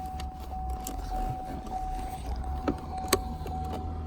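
Light clicks and taps of a T20 Torx screwdriver bit being worked against a small screw at the base of a manual gear shifter, the sharpest about three seconds in, over a steady faint high tone.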